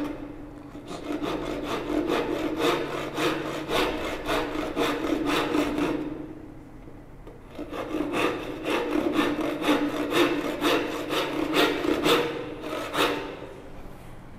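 Hand sawing with a 12-inch back saw, cutting a wedge slot down the end of a round wooden stool-leg tenon: quick back-and-forth strokes, stopping for about a second and a half near the middle, then resuming and ending shortly before the close.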